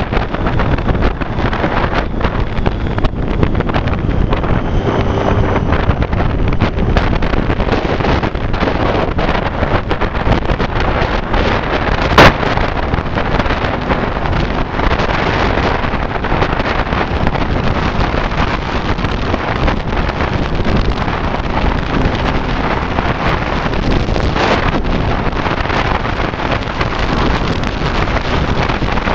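Wind buffeting the microphone of a Triumph Street Triple at road speed, with the motorcycle's three-cylinder engine running beneath it. A single sharp click about halfway through.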